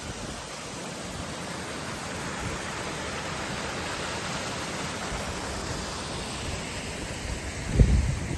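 Waterfall rushing in a steady, even hiss of falling water. Near the end a short low thump breaks in.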